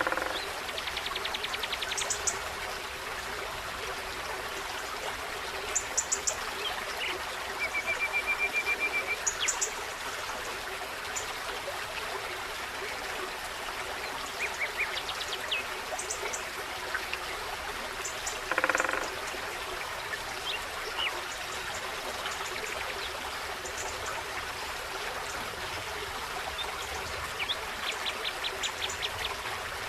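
A forest stream babbling steadily. Small birds call over it on and off with short rapid trills and high chirps, and one louder, harsher call comes about two-thirds of the way through.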